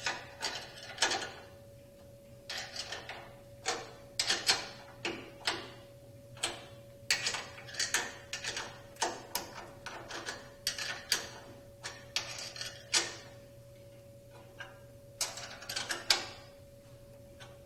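Ratchet wrench clicking in short runs of strokes as two 5/16-inch bolts are tightened firmly. A faint steady hum runs underneath.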